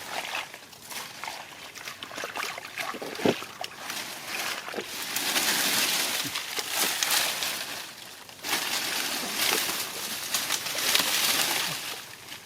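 Shallow rice-field water sloshing and splashing as hands grope through it for fish. Scattered small splashes come first, then two longer bouts of splashing in the second half.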